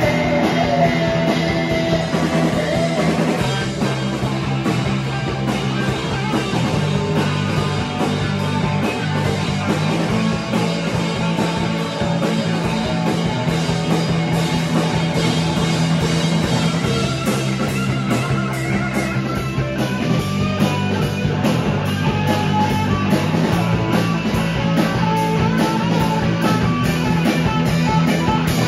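A rock band playing live: drum kit, electric bass and electric guitars.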